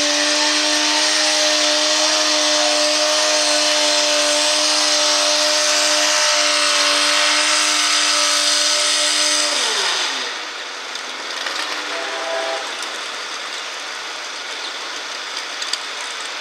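Naturally aspirated International Harvester pulling tractor running at full throttle as it pulls the sled, a loud steady high engine note. About ten seconds in the throttle comes off and the pitch falls quickly as the engine winds down, leaving a quieter engine sound.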